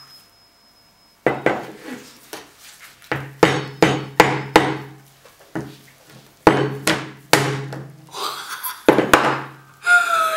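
Metal meat-tenderizing mallet striking a banana frozen rock-hard in dry ice on a plastic cutting board: about a dozen sharp blows in quick runs of two to four, each with a short low ring after it, until the banana breaks.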